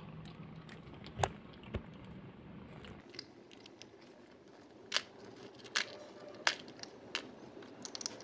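Kittens eating dry kibble from a plastic tub: faint crunching with scattered sharp clicks.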